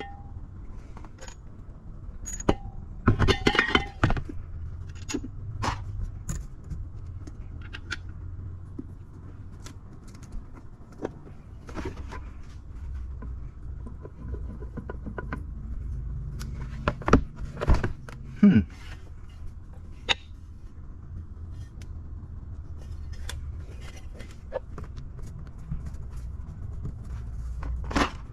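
Scattered metallic clinks, taps and knocks of hand tools and metal parts being handled while working on a car's rear axle and differential, over a low steady hum. The louder clusters of knocks come a few seconds in and again past the middle.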